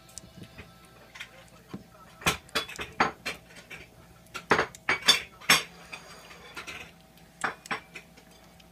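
Kitten eating wet cat food from a ceramic dish, the dish clinking and knocking against a tray in irregular clusters of sharp taps, the loudest about halfway through.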